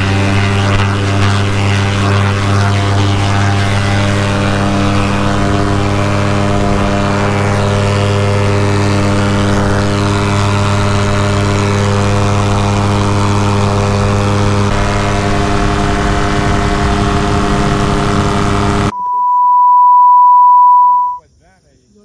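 Paramotor engine and propeller running at full power for a takeoff run, a steady loud drone with many overtones. About nineteen seconds in it cuts off abruptly and a steady high beep sounds for about two seconds, followed by near silence.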